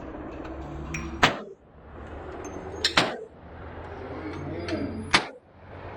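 Walther PDP Compact pistol fired three times as slow, aimed single shots, about two seconds apart.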